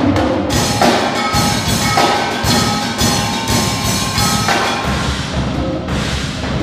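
Percussion ensemble playing a fast, dense passage of drum and cymbal strokes on drum kits, drums and concert bass drum, struck with sticks. A bright wash of cymbal-like ringing comes in about half a second in.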